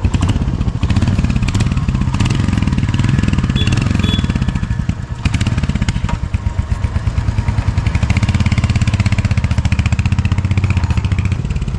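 Royal Enfield Hunter 350's single-cylinder engine running with a close, even beat of firing pulses. It dips briefly about five seconds in, then runs steadily.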